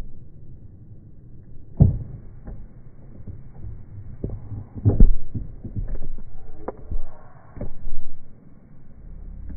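A series of irregular dull thumps and knocks over a low rumble, the strongest about two seconds in and around the middle.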